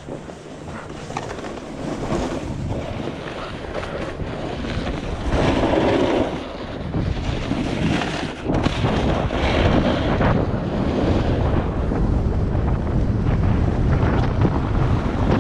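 Snowboard sliding and scraping over packed snow, with wind rushing over the action camera's microphone. It gets louder after about five seconds as the rider picks up speed, with surges at the turns.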